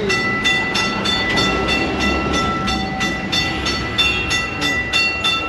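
Old Kolkata tram in motion, heard inside the car: rapid, evenly spaced metallic clicks, about four a second, with several steady high ringing tones held through them over a low rumble.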